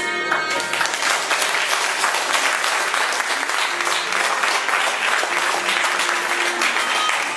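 Audience clapping, starting about half a second in as the music ends, with faint music still under it.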